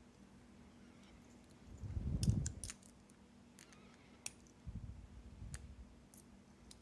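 Small metal clicks and taps of lock parts and tools being handled while an Assa 700 lock cylinder is taken apart, with a low handling thump about two seconds in and softer bumps later.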